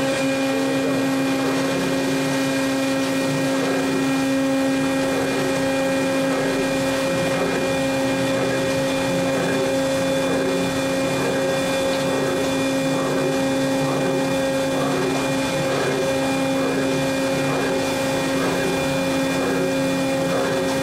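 Electric order picker's motor running with a steady humming whine, coming on at the start and holding one even pitch with an overtone.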